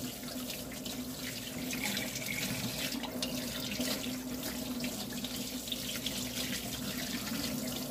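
Kitchen faucet running steadily into a stainless steel sink, the stream splashing over a whole raw chicken being rinsed and rubbed by hand.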